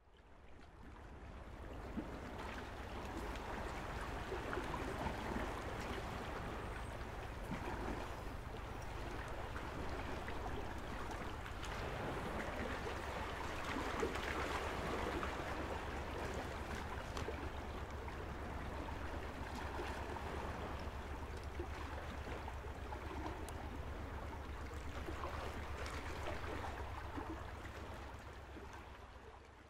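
Small waves lapping and washing gently over a pebble and rock shore, swelling and easing every few seconds, over a steady low hum. The sound fades in at the start and out near the end.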